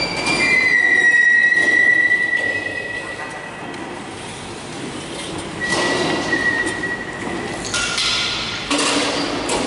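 School desk and chair legs dragged across a tiled floor. There is a long, steady, high squeal starting about half a second in and lasting some three seconds, and a shorter squeal around six seconds in. Knocks and shuffling of furniture run between them.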